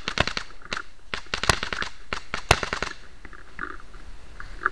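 Pump-action paintball markers firing on the field: an irregular string of sharp pops, several close together, thinning out after about three seconds.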